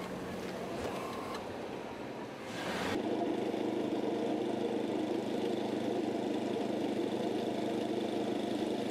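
A motor vehicle's engine idling with a steady, unchanging hum that starts abruptly about three seconds in, after a few seconds of noisier outdoor sound.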